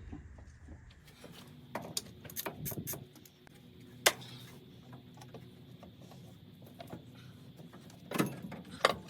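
Hand tools working on the car: scattered clicks and metal knocks, with a sharp knock about four seconds in and a burst of clatter near the end.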